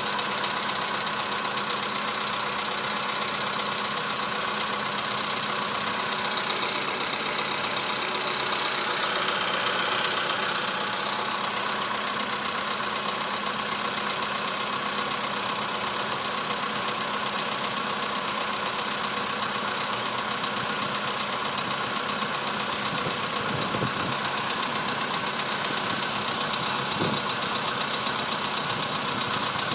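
Engine idling with a steady, rapid knocking.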